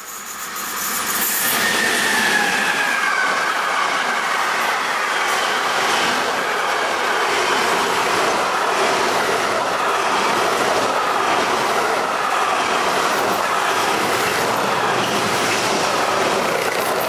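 Intermodal freight train of container and tank-container flat wagons passing close by at speed: a loud, steady rush and rumble of wagon wheels on the rails, with repeated clicks from the wheels. The sound builds over the first two seconds, and a thin high whine slides down in pitch a couple of seconds in.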